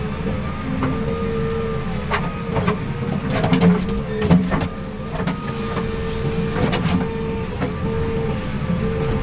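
Backhoe loader's diesel engine running steadily. Sharp knocks and clanks come in a cluster about two to five seconds in and again near seven seconds.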